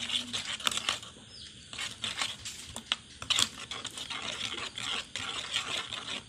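A spoon stirring a wet spiced mixture in a plastic bowl, with quick, irregular scraping and clicking against the bowl's sides.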